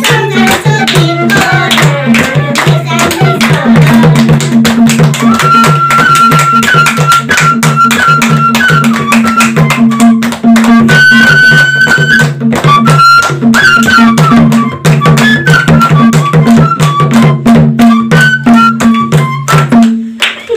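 Nepali folk music played live: a madal hand drum beaten in a fast, dense rhythm with hand clapping, under a high melody of held, stepping notes. The music stops shortly before the end.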